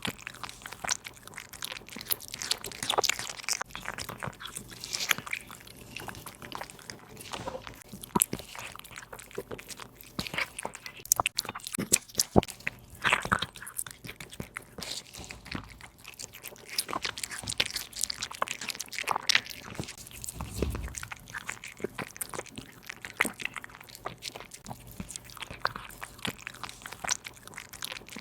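A cat chewing and biting through raw bone-in meat, with an irregular run of crunches and sharp clicks all the way through. A single low thump comes about two-thirds of the way in.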